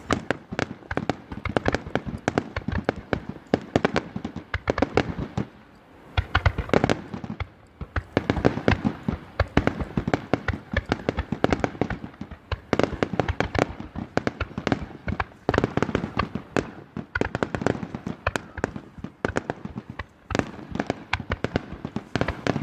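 Fireworks going off in rapid, dense volleys of crackling bangs and pops, many a second, with short lulls about six seconds in and near the end.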